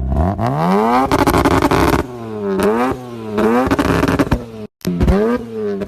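Rotary-engined car revving hard. The engine sweeps up to high revs and holds there briefly, then gives a series of quick rev blips that rise and fall.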